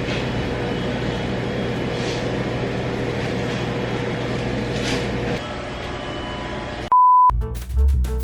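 Steady hum and road noise of a car driving, heard from inside the cabin, easing off a little after about five seconds. Near the end comes a short, high, single-pitch electronic beep, and music starts right after it.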